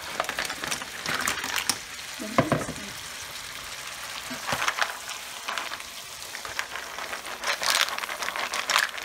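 Live mussels in their shells hitting a hot pan of tomato and white-wine broth: steady sizzling with the shells clicking and scraping as a spatula stirs them, and a louder knock about two seconds in.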